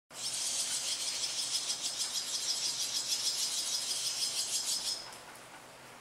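Barn swallow nestlings begging: a rapid, high-pitched twittering chatter that stops abruptly about five seconds in.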